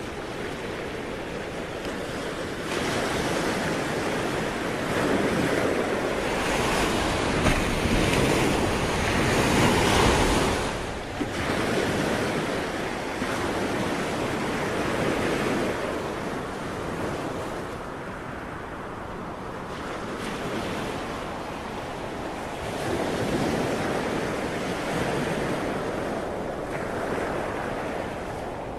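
Ocean surf: a continuous rush of waves that swells and falls back every few seconds, loudest about ten seconds in.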